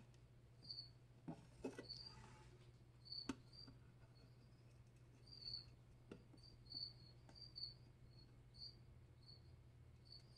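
Faint, short, high insect chirps recurring irregularly about once a second. A few light plastic clicks and taps as a clear plastic cup is picked up and set down into a plastic enclosure.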